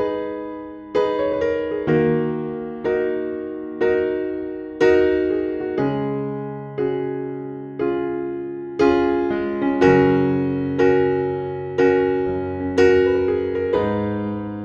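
Background music: soft electric piano chords struck about once a second, each one fading before the next.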